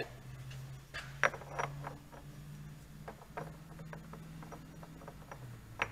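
Scattered light clicks and clinks of a steel chain sprocket being handled and fitted onto the splined transmission output shaft, over a steady low hum.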